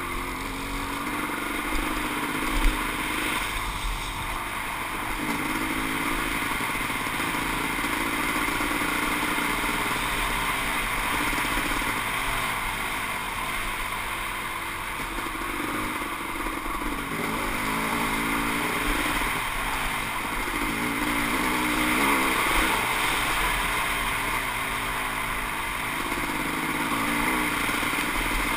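Kawasaki KX500 two-stroke single-cylinder dirt bike running along a trail, its engine note rising and falling with the throttle, heard from a helmet-mounted camera. There is a sharp knock about three seconds in.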